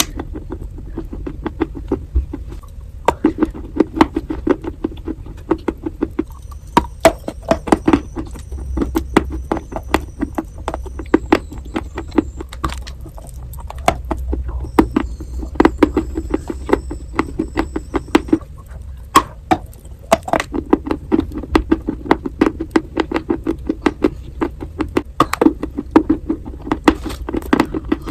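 Close-up crunching and chewing of pieces of chalk and dry clay: rapid sharp crunches, several a second, with brief pauses between bites.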